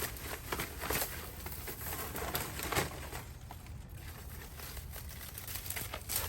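Scattered rustles and light knocks of dry plant debris and garden clutter being gathered up by hand.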